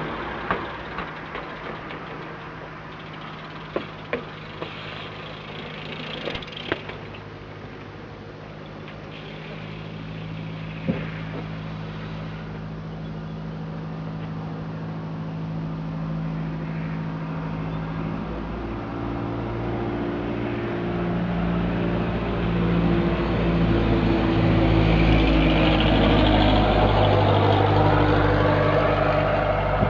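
A motor vehicle engine running and growing louder over the second half, with a few sharp knocks in the first several seconds.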